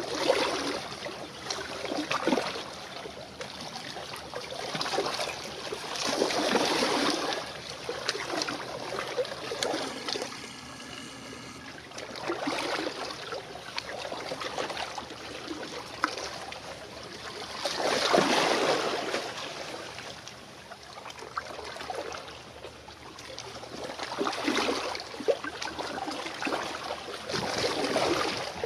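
Small sea waves washing and lapping at the shoreline, swelling and fading every few seconds with a crackling fizz.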